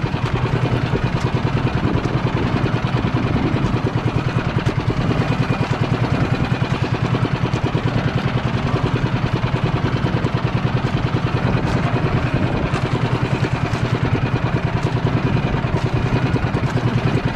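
Small engine running steadily, with a fast, even putter.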